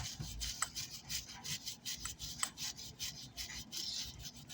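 A brush scrubbing burnt residue off an amplifier's circuit board with quick back-and-forth scratchy strokes, about four a second.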